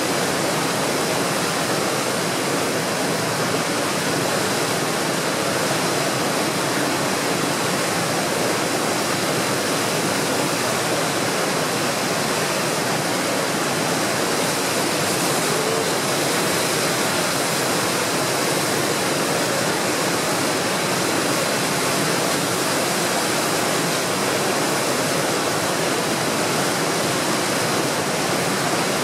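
Tidal rapids rushing: a steady, unbroken roar of white water pouring through a large standing wave.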